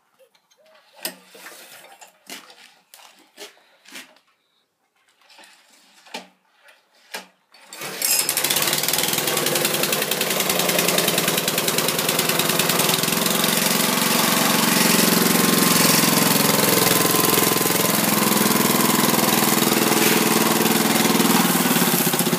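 An old pull-start petrol lawn mower engine being revived catches about eight seconds in and then runs steadily and loudly. Before it starts there are scattered knocks and clatter.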